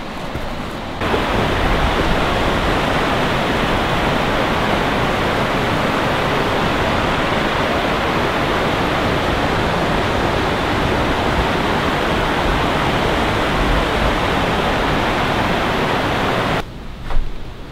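Steady loud rushing of river rapids pouring between ice and snow-covered rocks. It starts abruptly about a second in and cuts off near the end.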